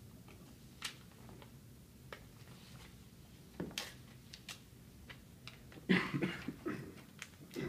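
Scattered small clicks, taps and paper rustles in a quiet meeting room, as people write on and handle paper. About six seconds in there is a short, louder cluster of rustling and handling noise.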